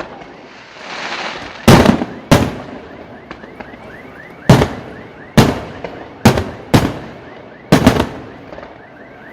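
Aerial fireworks shells bursting overhead: about seven sharp, loud booms at irregular intervals of roughly one to two seconds, some coming in quick pairs, each with a short echoing tail.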